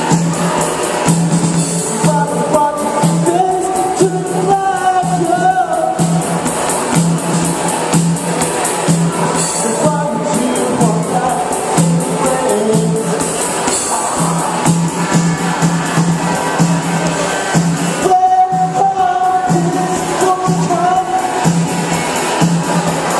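A song with sung vocals over a pulsing bass line and drums. The voice comes in a couple of seconds in and again about three quarters of the way through.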